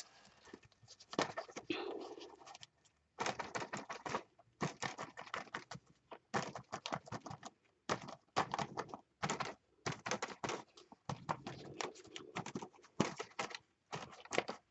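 Paint being dabbed onto paper in quick runs of light taps, each run lasting about a second, with short pauses between.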